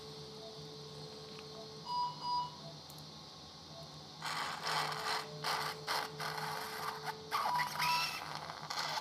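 Electrosurgical vessel-sealing generator (LigaSure type): a faint steady tone while the handpiece seals a bleeding vessel, then two short beeps about two seconds in, signalling that the seal is complete. A second seal cycle follows with its own tone and closing beeps near the end, while surgical suction noisily draws off blood from about four seconds in.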